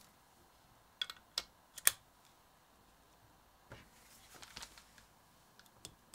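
Sharp clicks and taps of hands handling a stripped-down condenser microphone and its cable at a desk: a quick cluster about a second in, another around four seconds in, and a few small ticks near the end.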